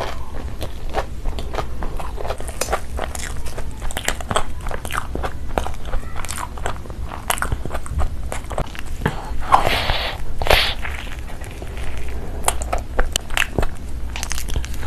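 Close-miked mouth sounds of eating crumb-coated fried potato cheese balls: dense wet chewing and smacking with small crunches of the crispy coating, and a couple of louder crunching bites about two-thirds of the way through.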